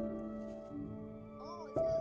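Soft background music of held, sustained notes, with a new note coming in near the end.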